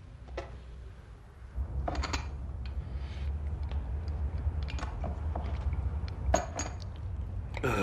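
Scattered small clicks, knocks and clinks of crockery being handled, over a low hum that grows louder about one and a half seconds in.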